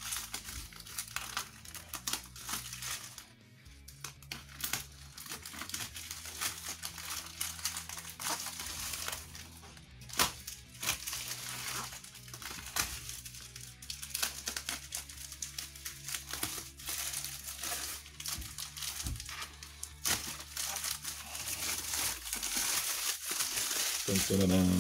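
Knife slicing through a plastic courier mailer while hands pull it open, the thin plastic crinkling and crackling. Soft background music with held bass notes runs underneath.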